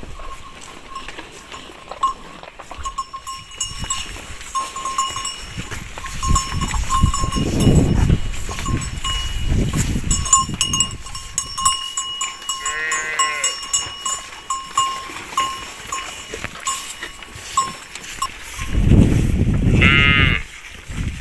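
A herd of cattle and calves crowded together, with a bell clinking on and off. A short bleating call comes about halfway and a higher one near the end, over bursts of low, close-up rumble.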